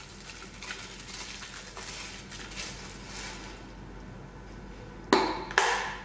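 Plastic food storage containers handled with light rustling, then two sharp plastic clacks about half a second apart near the end, as containers knock together or are set down.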